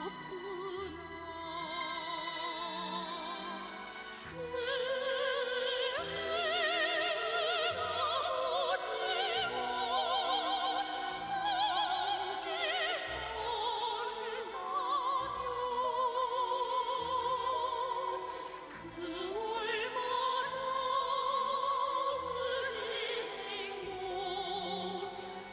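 Operatic singing in a high register with strong vibrato, long held notes that slowly rise and fall, over orchestral accompaniment.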